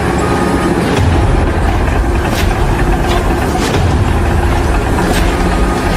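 A heavy vehicle or large machine running steadily with a loud, continuous low rumble and a few faint clicks.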